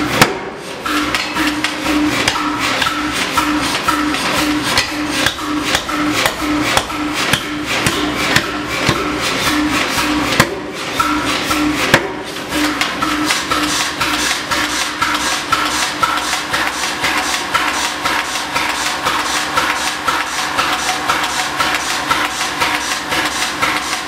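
1923 Vulkan air-powered forging hammer with a 300 kg ram, running and striking the anvil in a steady rhythm of about two blows a second amid a dense clatter of machine knocks.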